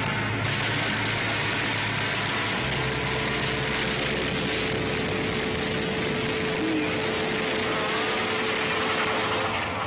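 Soundtrack sound effect of aircraft engines in an air battle: a loud, steady roar, with a steady hum joining about three seconds in.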